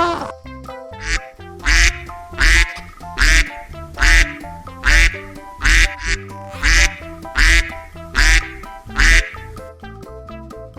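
Duck quacking loudly about ten times in a steady, even series, roughly one quack every 0.8 seconds, over background music.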